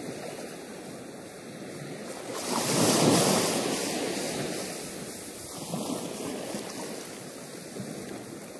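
Pacific surf washing around the rocks below a sea cliff, mixed with wind rushing on the microphone. One louder surge rises about two and a half seconds in, peaks around three seconds and eases off.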